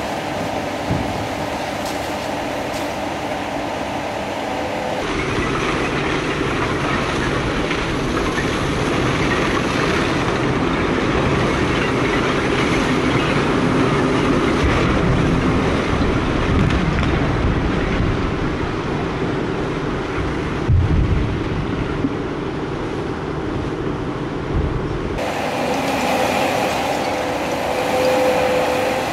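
Cat 336 Next Generation hydraulic excavator demolishing a masonry building with a demolition grapple: the engine and hydraulics running under load over a steady rumble and clatter of breaking masonry and falling rubble. The rumble grows heavier from about five seconds in until a few seconds before the end, with a single loud knock in the latter half.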